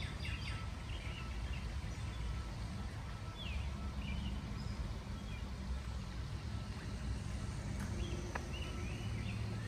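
Outdoor ambience: a steady low rumble, with a few faint, short bird chirps about three to four seconds in.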